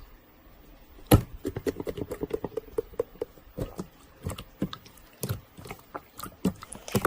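Irregular soft clicks and taps, with one louder knock about a second in and a run of quick small ticks after it.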